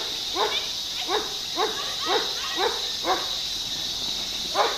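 Dog barking in a rapid series, about two barks a second, pausing for a moment near the end before barking again.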